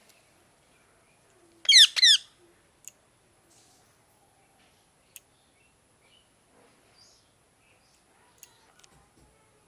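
Parrot giving two loud, short falling calls in quick succession about two seconds in, followed by a few faint clicks.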